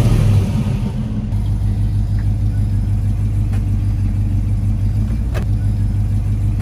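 Chevelle's swapped-in 5.7-litre LS1 V8 settling from a throttle blip into a steady idle, its exhaust giving a low, even rumble, with a couple of faint clicks.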